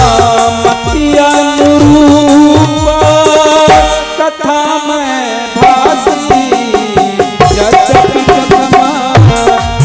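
Instrumental interlude of Indian devotional music: a harmonium melody over a steady dholak rhythm. The drumming drops out for a moment about four seconds in, then comes back.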